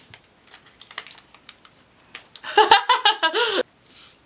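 Light ticking and crinkling as a small packet of German fizzy powder (Brausepulver) is handled and opened. About two and a half seconds in there is a loud burst of voice, which is the loudest sound, lasting about a second and cutting off suddenly.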